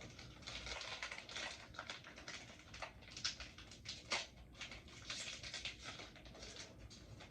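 Foil Pokémon card booster pack being torn open and crinkled in the hands, a fast, irregular crackle with sharper crinkles here and there.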